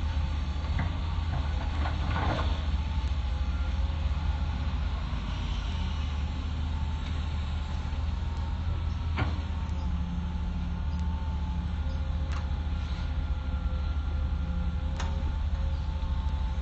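Hitachi excavator running steadily with a deep engine rumble and a thin whine over it, and a couple of sharp metallic knocks.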